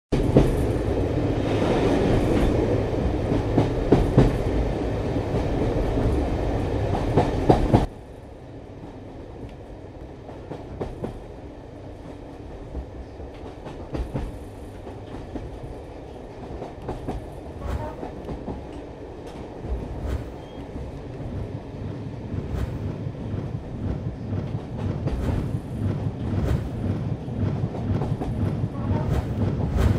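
Train running: a loud rumble with clicks that drops away suddenly about eight seconds in, then a quieter rumble with scattered clicks that slowly builds.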